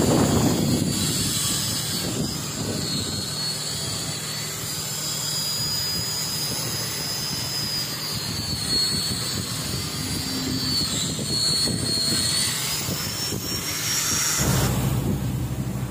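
Handheld angle grinder running against steel deck plate, a high whine that wavers and slides in pitch, cutting off near the end.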